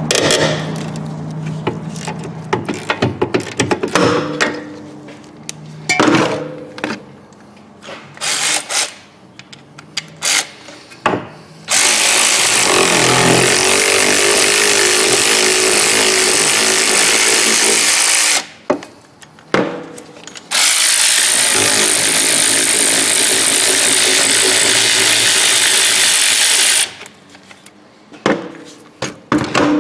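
Ratchet clicking and metal knocks on the rear brake caliper bolts. Then an air tool runs in two long stretches of about six seconds each, with a short burst between them, breaking the bolts loose.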